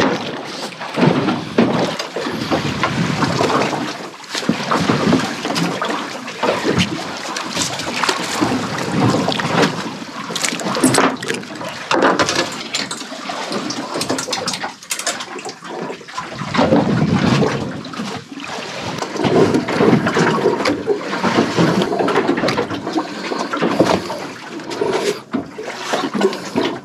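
Water sloshing and splashing against a small boat, an uneven, churning noise with frequent short splashes.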